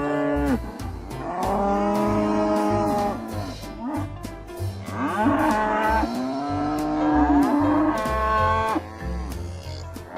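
Cattle mooing: a series of long lowing calls one after another, each rising and then falling in pitch. Background music with a steady bass pulse runs underneath.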